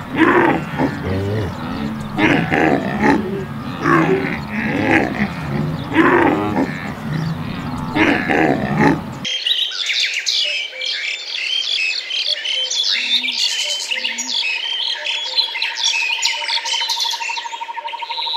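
Repeated pitched animal calls for about nine seconds. Then, after an abrupt change, many birds chirping, with a steady high trill running beneath them from about two thirds of the way in.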